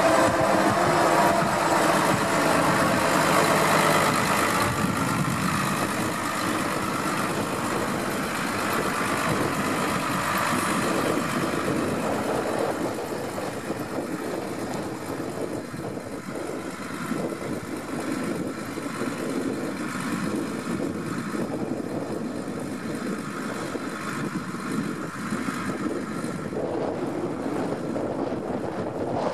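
New Holland Ford 8360 tractor's diesel engine running steadily while working an arm-mounted flail hedge trimmer. The sound gradually grows quieter over the first dozen seconds, then holds steady.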